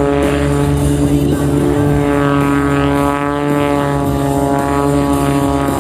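Propeller and piston engine of an MX-2 aerobatic plane droning overhead during an aerobatic maneuver, its pitch shifting slowly as it moves.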